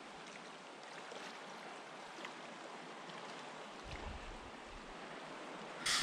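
Steady rush of a fast river's flowing water. A low rumble comes in around four seconds in, and a brief, loud hiss of noise comes right at the end.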